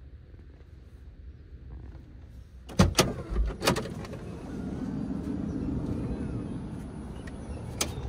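Honda StepWGN's sliding side door being opened: a few loud clunks as it unlatches, a steady hum while it slides back, and a click as it stops.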